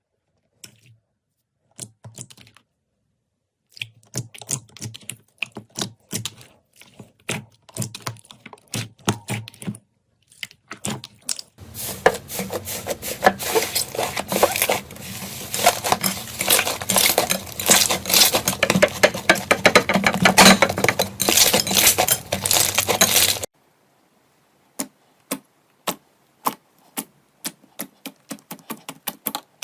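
Slime being squeezed and pressed by hand, with scattered sharp clicks and pops, then a long stretch of dense crackling that stops suddenly, then sparse clicks again.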